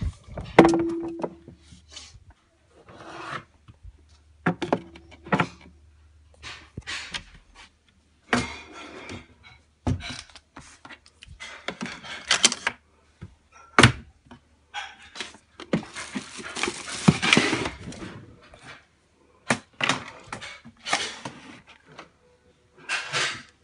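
Bottles, jars and plastic containers being moved about and set down on wooden shelves: a run of irregular knocks and thuds with handling noise between them. The longest, noisiest stretch comes about two-thirds of the way through.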